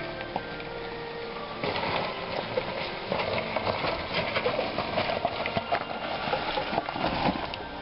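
Background music until about a second and a half in. Then a Suzuki Jimny's tyres crunch and pop over loose rocks and gravel as it crawls slowly down a rough dirt track, with many sharp clicks of stones shifting under the wheels.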